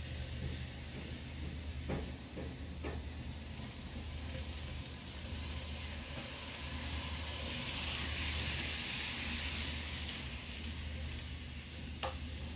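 Kato D51 N-scale model steam locomotive running on its track: a soft hiss and whir from its motor and wheels that swells in the middle and fades again, over a steady low hum, with a few small clicks.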